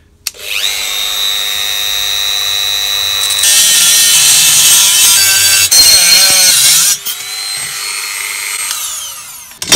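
Dremel rotary tool with a cut-off wheel spinning up to a high whine, then grinding through the VCR's sheet-metal cassette bracket with a harsh, loud hiss. The grinding stops about seven seconds in, leaving the motor's whine, which falls in pitch as it winds down near the end.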